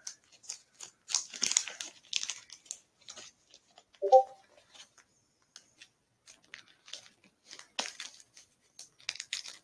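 Rustling, crinkling and clicking as a trading card is pushed and worked back into its holder by hand, in short irregular bursts. There is a brief pitched sound about four seconds in.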